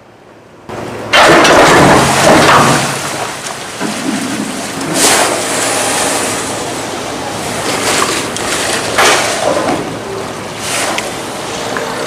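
A steel sluice gate closing against the current. A loud rush of water through the narrowing gap starts suddenly about a second in, with several sharper surges and knocks.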